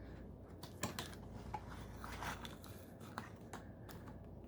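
Faint, scattered clicks and light rustling as a card booster box and its foil packs are handled.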